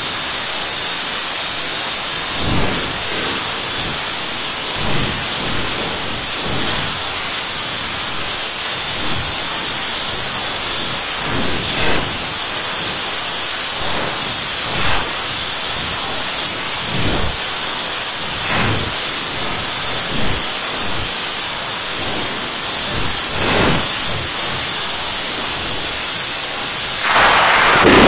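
Heavily distorted fireworks sound effect: a loud, steady hiss like static with irregular dull booms about every one to two seconds. Just before the end it switches to a louder, fuller sound.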